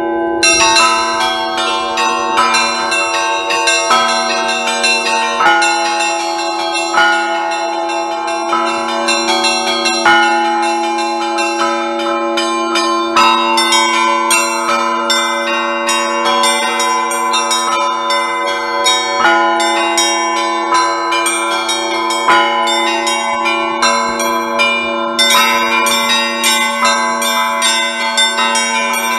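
Russian Orthodox church bells ringing a continuous peal (zvon): small bells struck in a quick, unbroken rhythm over the steady ringing of the larger bells. The small bells grow busier near the end.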